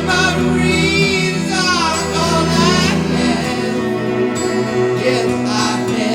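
Rock music played from a vinyl record through speakers: a wavering, vibrato melody line over sustained bass and chords, the melody dropping out about three seconds in.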